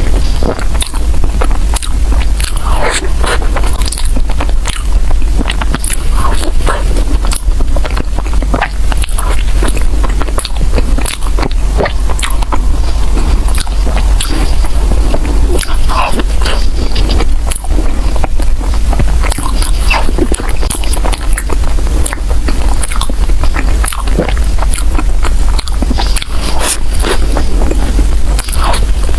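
Close-miked chewing and biting of soft bread filled with mochi: irregular wet mouth clicks and smacks throughout, over a steady low hum.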